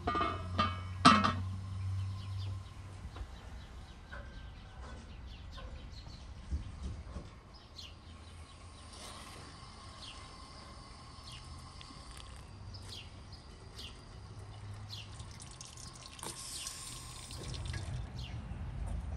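Liquid dripping and trickling in small scattered drops, with a couple of loud sharp knocks about a second in.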